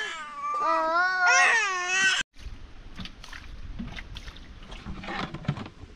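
A baby crying in long, wavering wails that cut off abruptly about two seconds in. After that comes a quieter low rumbling noise with scattered faint clicks and knocks.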